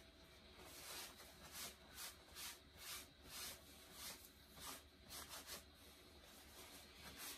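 Faint rhythmic rubbing of cloth on cloth, about two soft strokes a second: paint being wiped off a shirt.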